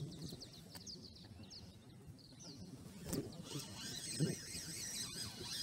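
Birds chirping in quick, short high calls over a low rumble. From about three seconds in, a denser high chatter takes over, with two dull bumps.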